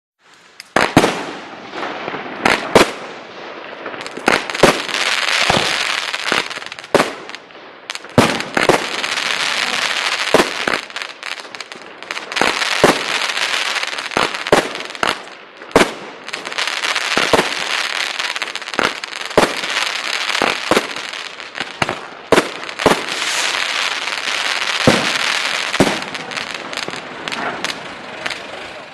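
A 13-shot consumer fireworks battery (cake) firing: a series of sharp bangs every one to two seconds as the shells launch and burst. Each bang is followed by several seconds of dense crackling from the crackling-tipped palm bouquets.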